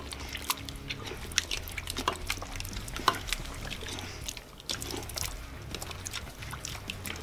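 Wet slurping and eating of cold baked beans, with spoons scooping from a large stainless steel bowl and scattered sharp clicks of the spoons against the metal.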